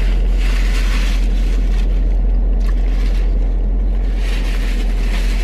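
Steady low rumble of a car running, heard inside its cabin, with paper napkins rustling near the start and again near the end.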